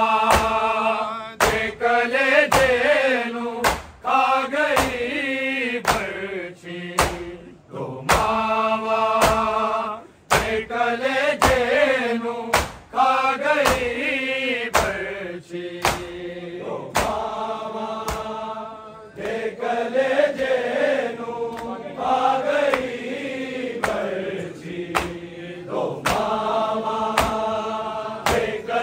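Male voices chanting a Punjabi noha, a Shia lament, in long melodic phrases over a steady beat of sharp strikes.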